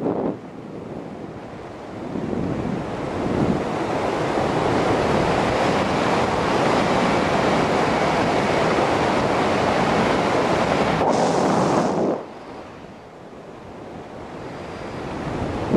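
A loud, steady rushing noise, typical of wind on the microphone. It builds over the first few seconds, cuts off suddenly about twelve seconds in, and a quieter rush swells again near the end.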